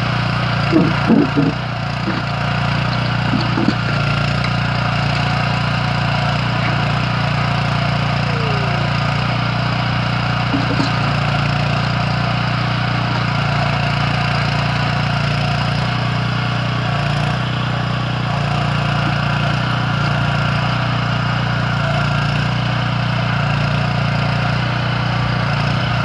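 The Kellfri towable backhoe's 9 hp petrol engine runs steadily under digging work. A few short, louder noises stand out in the first four seconds.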